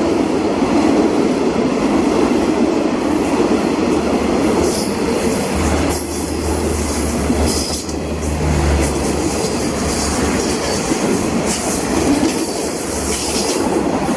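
Passenger train coaches rolling past close by: a steady rumble of steel wheels on the rails with clattering over the rail joints and brief high wheel squeals. A deeper hum swells and fades as the middle of the train goes by.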